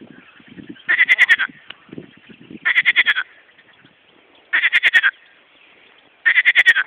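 Frogs calling at a pond: a loud, pulsed croak about half a second long repeats four times, roughly every 1.7 seconds, with fainter, lower calls between them.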